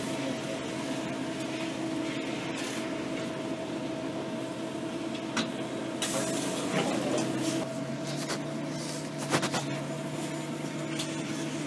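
Interior of a city transit bus under way: a steady engine and drivetrain hum whose pitch steps up slightly about two-thirds of the way through as the bus picks up speed, with a few sharp rattles and knocks from the body.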